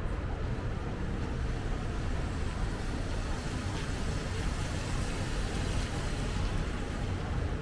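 City street ambience: a steady wash of road traffic noise with a low rumble, no single event standing out.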